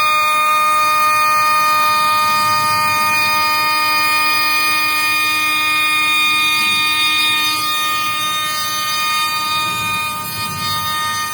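G-Penny 2.2 kW CNC spindle running with a 12 mm end mill surfacing the top of a workpiece: a steady whine of several held tones, easing slightly in level near the end.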